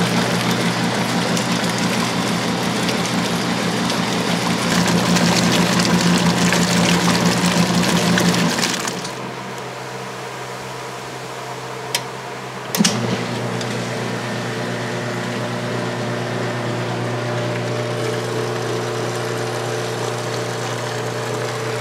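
1986 Kenmore 60 Series direct-drive washer agitating a tub of rinse water, its motor hum mixed with sloshing. About eight seconds in the agitation stops; after a pause come two clicks, then the motor starts again with a steady hum as the machine pumps the water out in neutral drain.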